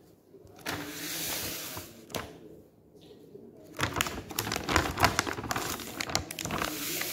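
Clear plastic packaging being handled: a soft rustle, then from about four seconds in a dense run of crinkling and crackling.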